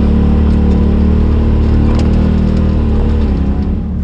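Polaris RZR side-by-side engine running at a steady throttle, easing off near the end. A single sharp click is heard about halfway through.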